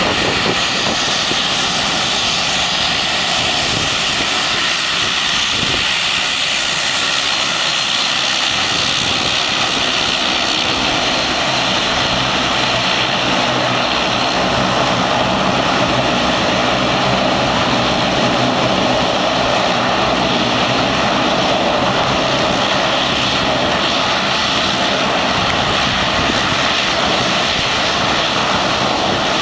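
Porter Airlines Bombardier Dash 8 Q400's twin Pratt & Whitney Canada PW150A turboprops running at taxi power as the airliner taxis and lines up on the runway. It is a steady, unbroken engine hum and whine with a propeller rush over it.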